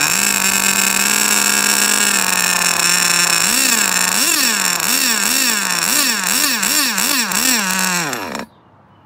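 Sirio S12 .12 two-stroke nitro engine in an RC car idling, then blipped on the throttle about nine times in quick short revs from about halfway in. The engine is shut off near the end and cuts out suddenly as it winds down.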